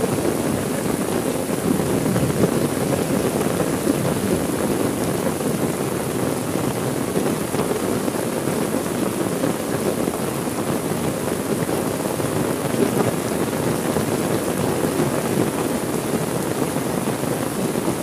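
Heavy rain falling steadily: an even, dense hiss without let-up.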